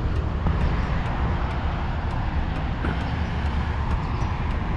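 Steady low rumble of road traffic from a busy highway.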